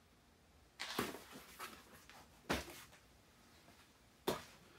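A cardboard box being handled and moved: three short knocks about a second and a half apart, with a light rustle of cardboard after the first.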